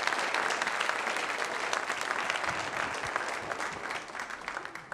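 Congregation applauding with many hands clapping, the applause gradually dying down toward the end.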